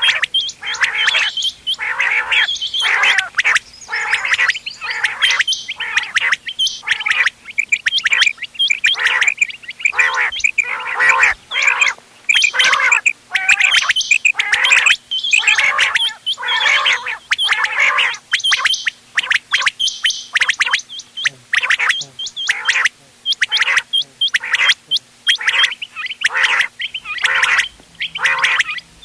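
Quails calling over and over in quick, closely packed phrases with hardly a pause, a mixed recording of chinga quail calls played as a hunting lure. A faint steady hum runs underneath.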